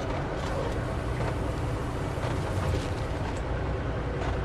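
A semi truck's engine and road noise heard from inside the cab while driving: a steady low rumble with faint rattles.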